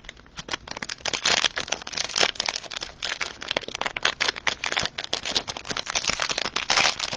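Crinkly cellophane wrapper of a trading-card cello pack being handled, a dense run of irregular crackles.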